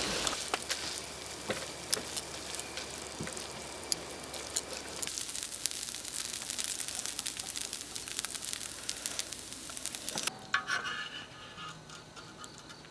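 Bean sprouts and pork stir-frying and sizzling in a pan, with scattered clicks. The sizzle cuts off suddenly about ten seconds in, leaving a much quieter background.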